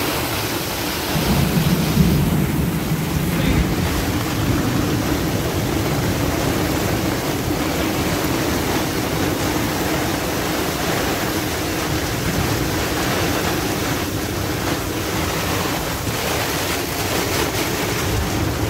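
Gale-force storm wind of about forty knots and rough sea around a sailboat, a dense, steady rush with the wind buffeting the microphone, and a louder gust between about one and three and a half seconds in.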